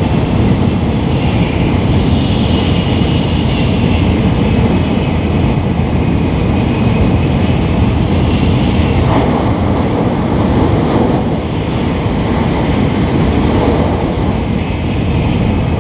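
Passenger train running at speed, heard from inside the car: a steady, loud rumble of wheels and running gear.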